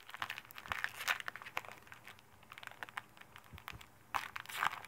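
Trading cards and a pack wrapper being handled: crinkling and rustling with many small clicks, and a louder crinkle about four seconds in.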